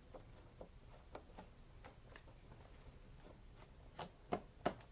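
Light, scattered clicks and ticks of a Phillips screwdriver working the captive screws on a plastic air filter box lid, with a few sharper clicks near the end.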